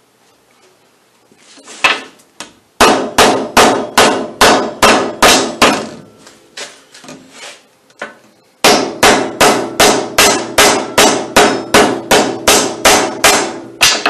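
A one-pound ball-peen hammer striking an Alligator Rivet belt-splicing tool, driving a steel splice strip down onto a rubber hay-baler belt. There are two fast runs of blows, about three a second, each ringing briefly, with a few lighter taps between them.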